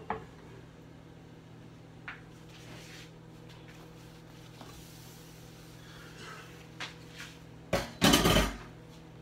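Kitchenware being moved and handled on a countertop: a few light knocks early on, then one loud clatter of dishes about eight seconds in.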